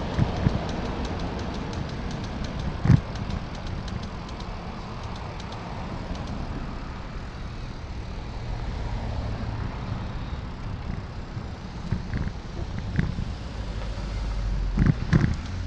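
Wind and road noise on a camera riding along on an e-bike in town traffic: a steady low rumble, broken by a few sharp knocks, one about three seconds in and two close together near the end.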